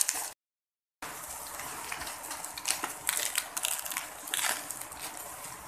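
Bubble wrap rustling and crinkling as it is pulled off a box by hand, over the steady hiss of heavy rain. The sound drops out to silence for a moment just after the start.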